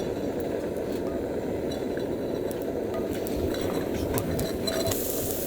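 Steady rushing cooking noise with scattered light clinks of metal cookware and utensils as pasta is made.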